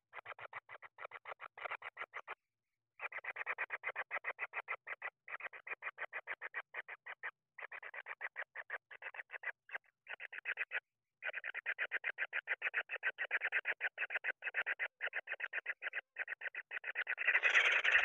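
Kingfisher chicks giving a rapid churring begging call: quick notes at about ten a second, in runs of a second or two with short breaks. The call grows louder and denser near the end.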